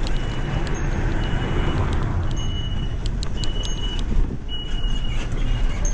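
Steady low wind rumble on the microphone with road noise from a bicycle being ridden. Faint short high tones and light ticks recur throughout.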